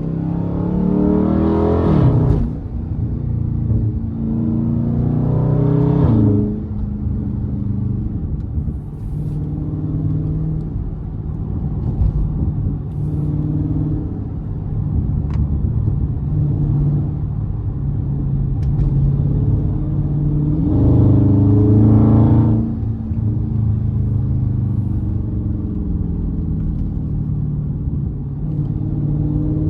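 Dodge Scat Pack's 392 (6.4-litre) HEMI V8 pulling under hard acceleration three times: near the start, around five seconds in and again about twenty seconds in. Each time the revs climb and then drop sharply as it shifts up. Between the pulls it runs more steadily at a lower level while cruising.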